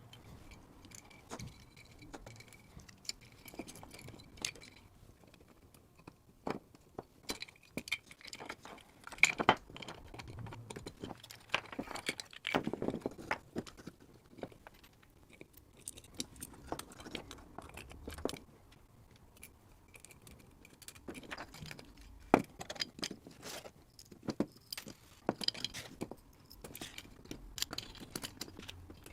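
Scattered clicks, taps and light metallic clinks as a Boss FZ-1W fuzz pedal is reassembled by hand, its circuit boards, screws and metal enclosure being handled.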